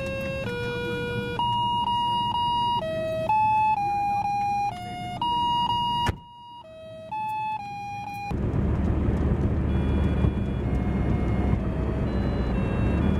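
Glitchy electronic monophonic music box playing a tune one beeping note at a time. About six seconds in a click cuts it quieter. From about eight seconds in, car engine and road noise take over, with the tune still faintly heard.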